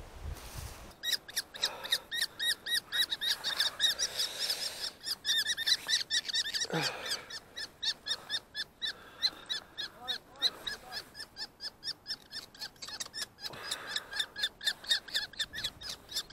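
Common kestrel giving its rapid, harsh kee-kee-kee alarm call in long runs of several notes a second, the adult bird alarmed at a person climbing at its nest.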